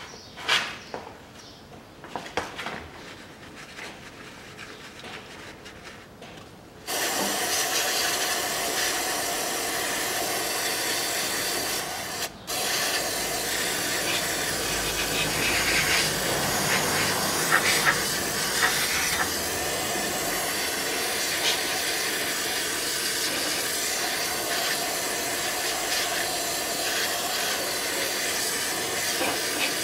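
Aerosol can of carburetor cleaner spraying through its straw: a steady hiss that starts suddenly about seven seconds in and stops briefly once near twelve seconds. Before the hiss there are a few light knocks of handling.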